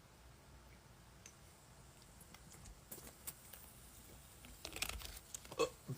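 Faint mouth and swallowing sounds of a man chugging a soda: a few quiet clicks, then a short cluster of louder gulping noises about a second before the end.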